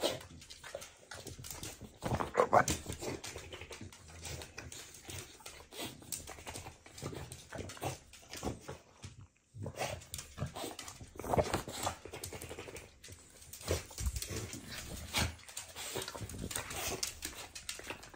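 Shar-pei dog at play on a tiled floor: short bursts of dog vocal noise, loudest about two and a half and eleven seconds in, over many quick clicks and taps as it moves about.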